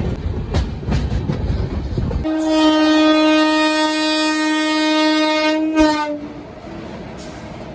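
Train rolling with a low rumble and a few clicks. About two seconds in, a locomotive horn sounds one steady tone for about three and a half seconds and cuts off abruptly, leaving a quieter rumble.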